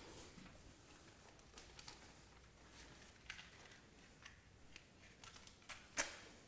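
Near silence: room tone with faint scattered clicks and rustles, and a sharper click about six seconds in.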